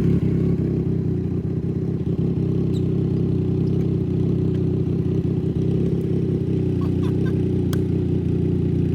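2018 Triumph Street Triple's inline three-cylinder engine idling steadily through a Racefit Growler X slip-on exhaust, a low, even note. A few faint clicks come in near the end.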